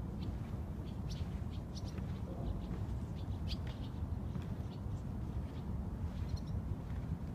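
Birds chirping: many short, high chirps scattered throughout, over a steady low rumble.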